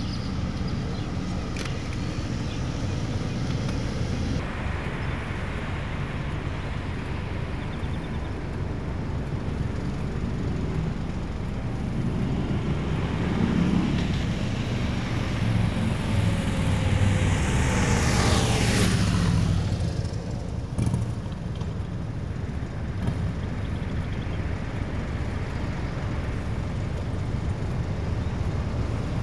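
Road traffic: a steady low rumble of engines and tyres. About two-thirds of the way through, a vehicle passes close by and its whine falls in pitch as it goes.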